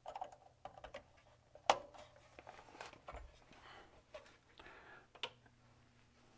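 Scattered light clicks, taps and rustling from hands handling the opened Elecraft K3 transceiver chassis, with the sharpest click nearly two seconds in and another a little past five seconds.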